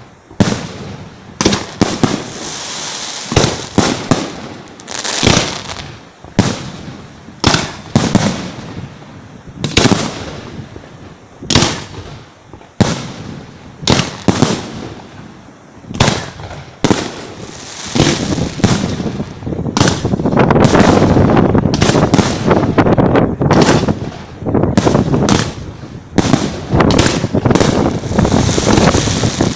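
Aerial firework shells bursting overhead at close range: sharp loud bangs about once a second, then, about two-thirds of the way in, a dense barrage of rapid bursts and crackling.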